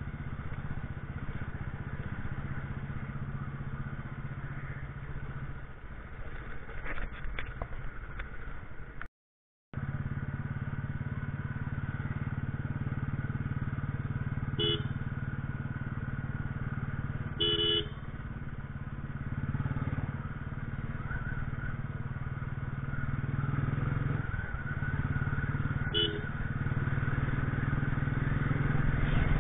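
Motorcycle engine running steadily under way, heard from the rider's bike. A few short vehicle horn beeps come partway through, including a quick double beep. The sound cuts out completely for about half a second around a third of the way in.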